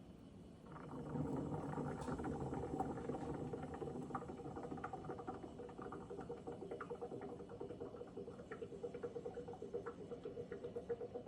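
Siphon coffee maker drawing the brewed coffee down from the upper chamber into the lower globe: a gurgling bubble that starts about a second in and turns into a rapid, even sputter near the end.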